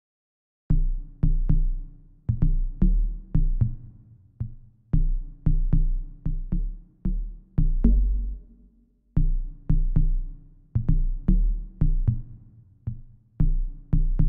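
Deep electronic synth bass notes playing a looping two-bar pattern on their own, starting about a second in. Each note has a sharp attack and a quick decay, and there is a short break before the pattern repeats, roughly every four seconds.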